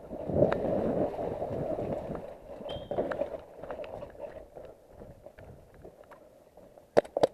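Wind and movement rumble on a head-mounted action camera's microphone as the player moves, heaviest in the first few seconds. Two sharp clicks come near the end.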